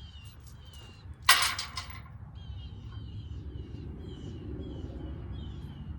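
A bird calling over and over in short falling notes, about two a second, above a low steady rumble. A brief harsh noise a little over a second in is the loudest sound.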